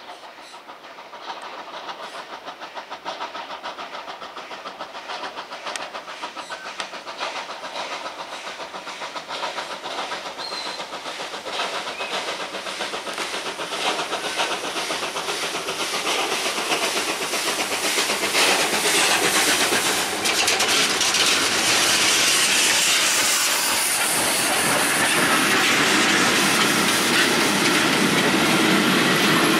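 FS Gr 740 2-8-0 steam locomotive pulling a train, its exhaust beats coming in a rapid, even run and growing steadily louder as it approaches. It is loudest near the end as the engine and tender pass close by.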